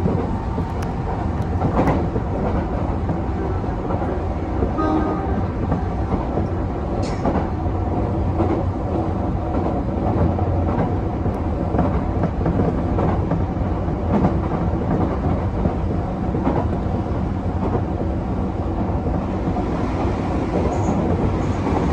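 Tokyo Metro 13000 series train running at speed, heard from the driver's cab: steady rumble of wheels on rails, with occasional clicks over rail joints. The noise grows brighter near the end as another train passes alongside.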